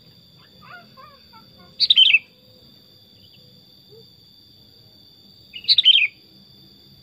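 Sooty-headed bulbul (kutilang) giving two short, loud phrases about four seconds apart, each a quick run of falling notes.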